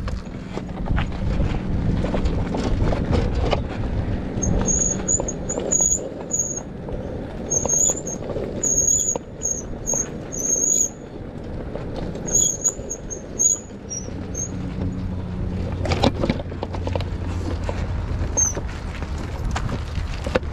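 ONYX RCR electric bike's disc brakes squealing in a string of short, high-pitched squeals while riding downhill on a rough dirt trail, over a steady low rumble. A sharp knock comes near the end.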